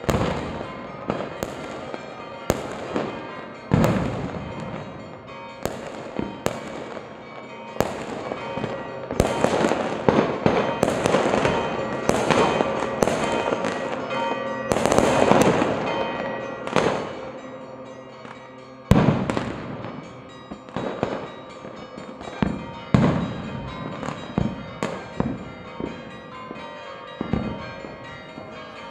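Fireworks and firecrackers going off: sharp bangs at irregular intervals, thickening into a dense run of crackling and bangs from about a third to over halfway through, with one loud single bang about two-thirds in.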